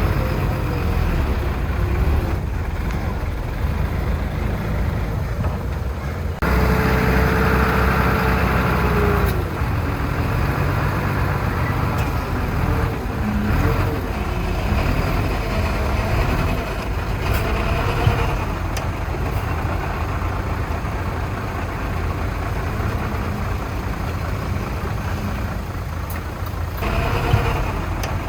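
Heavy diesel earthmoving equipment running: dump truck and bulldozer engines working, their pitch rising and falling in places. The sound jumps abruptly about six seconds in.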